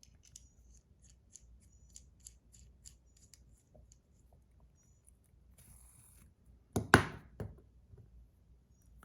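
Small, sharp metal clicks from buttons being worked onto the bearing of a zirconium Motorworks Mini Ergo fidget spinner, about two a second at first. A few louder knocks follow about seven seconds in.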